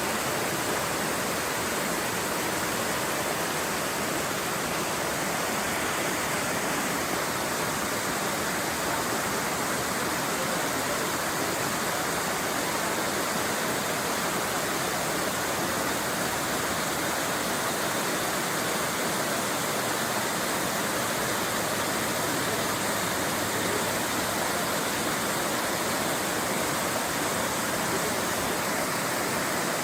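Mingo Falls, a tall mountain waterfall, rushing steadily: an even, unbroken noise of falling water with no change in level.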